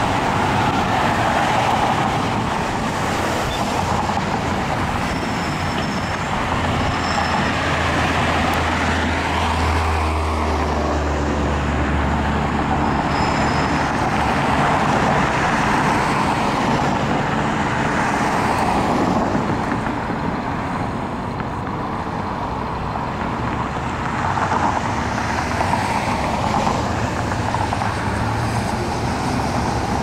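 Road traffic: cars and trucks passing and pulling away through an intersection in overlapping swells of tyre and engine noise. A low engine drone swells for several seconds about a third of the way in.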